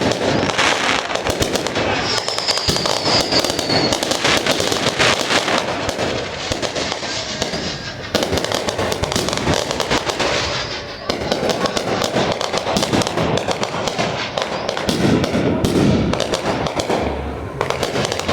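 Fireworks display going off in a dense barrage: rapid, overlapping bangs and crackling with hardly a gap. A short whistle, falling slightly in pitch, rises out of it about two seconds in.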